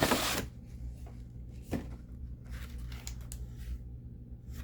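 Action-figure packaging being handled: a short burst of rustling at the start, a sharp click a little under two seconds in, then faint rustling and small taps.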